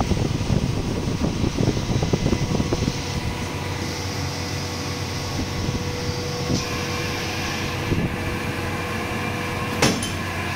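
Steady mechanical hum of a plastic injection moulding machine running, with a faint steady whine through most of it. Irregular rattling and crackling during the first few seconds, and a single sharp clack near the end.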